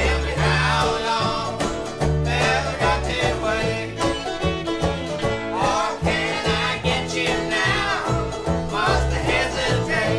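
Bluegrass-style instrumental music with banjo and guitar picking over a steady bass.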